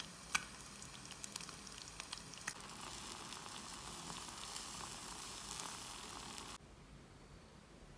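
Food frying in a pan: a faint sizzle with scattered pops and crackles, stopping abruptly near the end.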